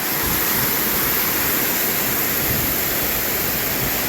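Waterfall close by, a steady, full rush of falling water from heavy snowmelt runoff.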